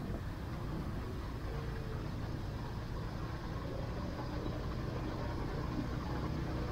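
Motor scooter's small engine running steadily while riding, with a steady low rumble of road and wind noise on the onboard microphone.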